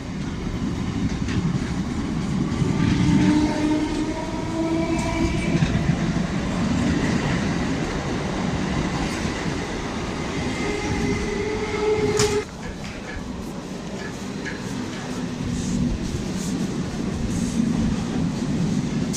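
Electric multiple unit (EMU) train running past on the rails: steady rumble and wheel clatter, with a whining tone that climbs a little in pitch. About twelve seconds in, the whine cuts off abruptly and a quieter train rumble continues.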